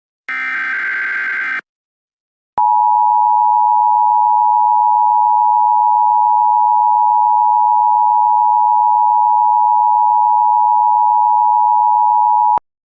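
One burst of Emergency Alert System SAME digital header data, a harsh warbling screech about a second long, then a second of silence, then the EAS two-tone attention signal (853 and 960 Hz sounding together) held steady for about ten seconds and cut off sharply. It is the alert tone that opens a new emergency warning broadcast.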